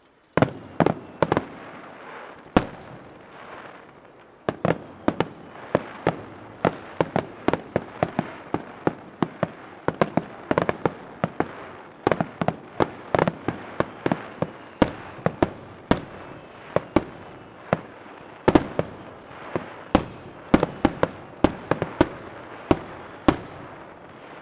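Aerial fireworks shells going off in a rapid, irregular string of sharp bangs, about two a second, over a steady crackle. There is a brief lull a few seconds in, then the bangs resume.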